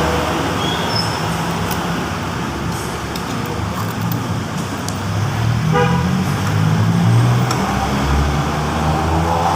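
Road traffic going past, with a short horn toot about six seconds in and a vehicle's engine rumble swelling just after it.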